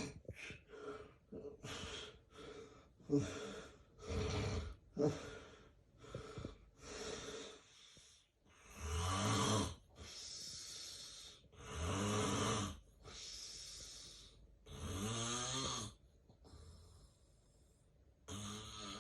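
A man with severe sleep apnea snoring in his sleep: first a run of short, uneven breaths, then loud snores about every three seconds, each followed by a quieter breath, with one more snore near the end.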